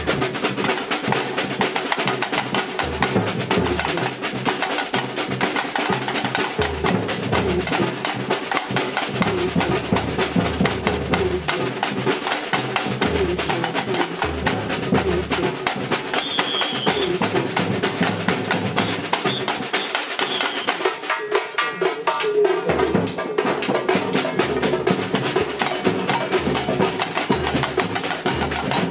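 Samba batucada drum ensemble playing: surdo bass drums with snare-type and hand-held percussion in a steady interlocking rhythm. About three-quarters of the way through, the bass drums drop out for a couple of seconds in a break, then the full band comes back in.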